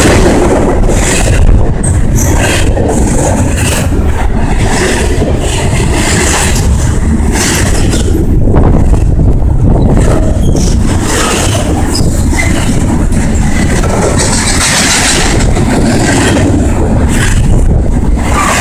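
Double-stack freight train rolling past: a steady, loud rumble of wheels on rail with irregular clatter throughout.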